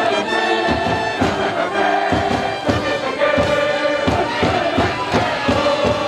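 A brass band playing a school cheering tune over a steady drum beat.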